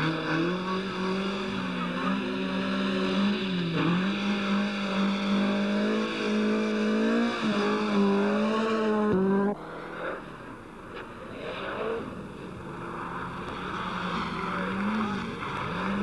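Rally car engines revving hard, the note climbing and dipping as the cars drive through the corners. About halfway the loud engine sound cuts off abruptly, and a quieter engine note follows that rises again near the end.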